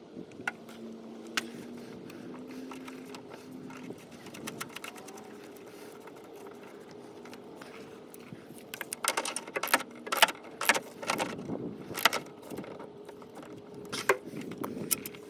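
Metal tool clinks and rattles while a thermosensor is being unscrewed and fitted, in a cluster of sharp clicks about two-thirds of the way through and once more near the end, over a steady low hum.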